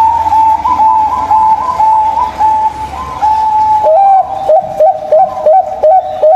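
Zebra doves (perkutut) cooing: several overlapping strings of coos at first, then from about four seconds in a steady run of short clipped coos, about three a second. A low rumble sits under the first half.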